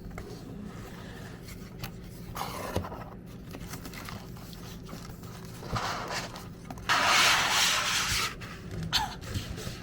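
A parcel being handled: rubbing and scraping sounds with scattered light knocks, and a louder rustle lasting over a second about seven seconds in.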